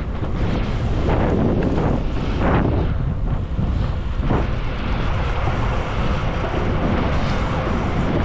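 Wind buffeting the microphone of a camera moving along on a bicycle: a loud, unsteady low rumble that swells and dips.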